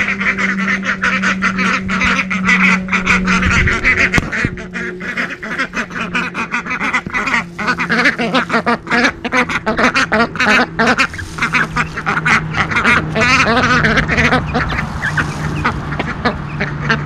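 A small flock of Indian Runner ducks quacking steadily while they eat scattered feed, with many short clicks through the calls.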